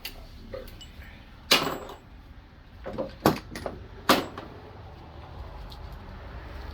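Hand tools and loose parts being handled during mower repair: a few sharp knocks and clinks, one about a second and a half in, several in quick succession around three seconds, and one more about a second later.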